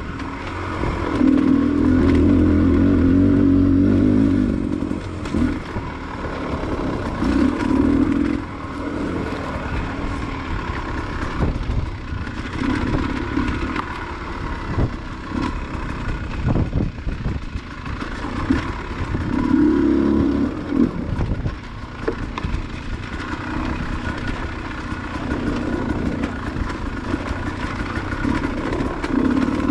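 Enduro dirt bike engine running on a trail ride, surging with bursts of throttle every few seconds, with scattered clattering knocks over rough ground.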